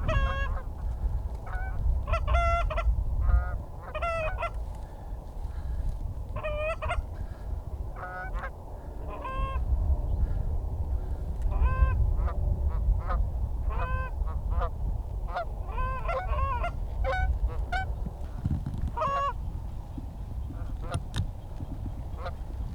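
Canada geese honking and clucking in a string of short, irregular calls, several close together, over a steady low rumble of wind.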